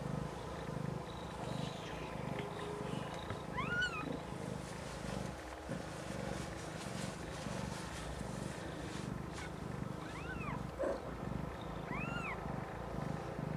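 Snowshoe Siamese mother cat purring steadily while a newborn kitten gives three short, high-pitched mews, about four seconds in, about ten seconds in and near the end.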